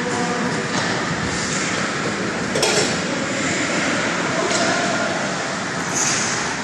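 Ice hockey rink during play: a steady wash of noise with skates scraping on the ice, and a single sharp clack about two and a half seconds in.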